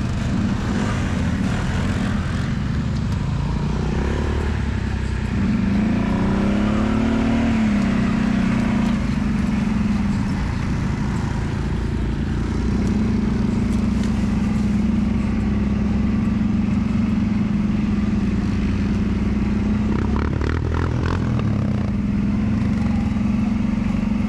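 ATV engine running while riding on a dirt trail, revving up and easing back about six seconds in, then holding a steady drone.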